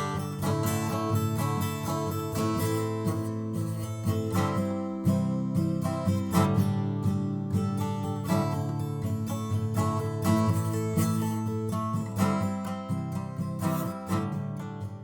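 Background music led by strummed and picked acoustic guitar, beginning to fade near the end.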